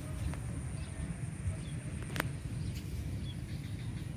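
Outdoor ambience: a steady low rumble with faint, short bird chirps and a steady high insect drone over it. A single sharp click comes a little past halfway.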